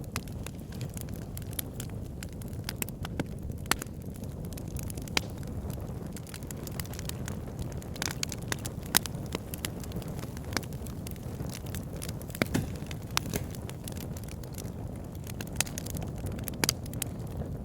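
Campfire burning: a steady low rush of flames with irregular sharp crackles and pops from the burning wood.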